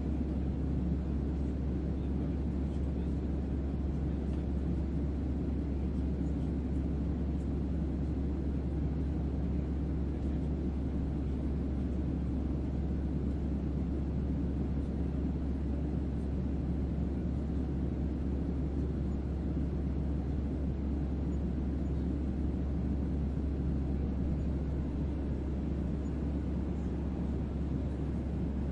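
Sea wind blowing steadily: an even, deep rush of noise that hardly changes, weighted heavily toward the low end.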